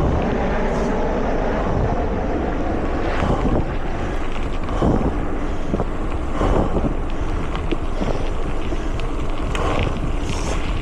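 Riding noise from a mountain bike on a trail: a steady rush of wind buffeting a small action camera's microphone over tyre rumble, with several short knocks and rattles from the bike on rough ground.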